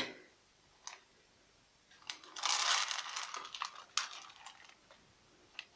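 Handling of a thin sheet-metal feeder: a light click about a second in, then roughly two seconds of scraping, rustling metal with a few sharp clicks, and one more click near the end.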